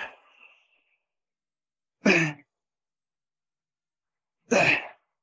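A weightlifter's sharp breaths out, one with each rep of a wide-grip back exercise, about every two and a half seconds. The tail of one breath falls at the start, and two more come about two seconds in and near the end, with silence between.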